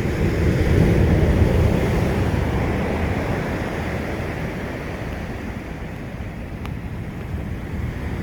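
Ocean surf breaking and washing on the shore, a surge swelling about a second in and easing off, then building again near the end, with low wind rumble on the microphone.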